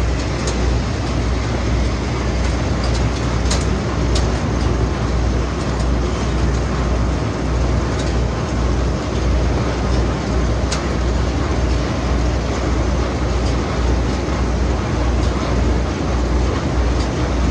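Potato-processing line machinery, with the inclined belt conveyor carrying potatoes, running steadily with a deep hum and a dense mechanical rattle. A few sharp clicks stand out, a little after three and four seconds in and again near the middle.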